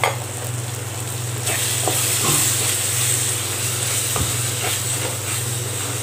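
Onion-tomato masala sizzling in a clay pot while a wooden spatula stirs and scrapes it, with a few short scraping strokes. The sizzle gets louder about a second and a half in, over a steady low hum.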